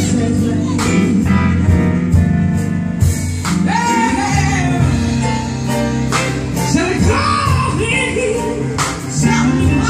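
A live band playing: a woman sings lead over electric and acoustic guitars, bass guitar and a drum kit.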